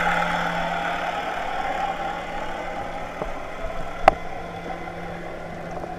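Motorboat engine and propeller heard underwater as the boat passes overhead: a steady low hum that slowly fades away. One sharp click about four seconds in.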